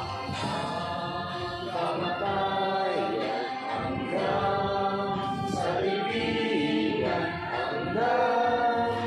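A group of voices singing a slow song together, each note held for a second or two.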